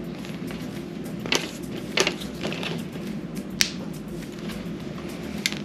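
Several sharp plastic clicks and crackles, five or so, the sharpest a little past halfway, as the AIRVO water chamber's feed spike is worked into the port of a bag of sterile water for inhalation and its vent cap is opened.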